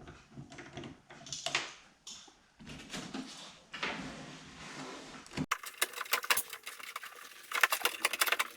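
Clicking, scraping and rattling of hand tools and metal parts as the lock actuator is worked loose inside a BMW car door. The sound changes suddenly about five and a half seconds in, and rapid clicking comes near the end.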